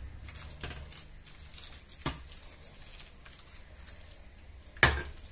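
Stock poured from a small saucepan into a metal roasting tray of potatoes and pork, heard as a faint trickle and splash. There is a sharp knock a little before the end.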